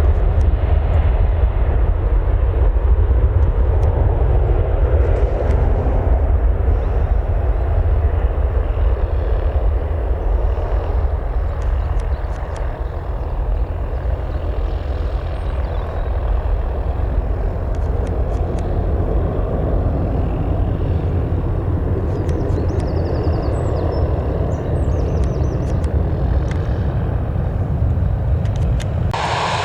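Steady, noisy aircraft engine sound from an airliner at the airport, over a heavy low rumble, with a few faint bird chirps. Near the very end it jumps suddenly louder and brighter.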